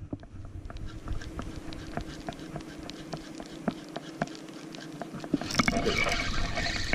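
Spinning reel and fishing line being handled: scattered light clicks over a faint steady hum, with a louder hiss coming in about five seconds in.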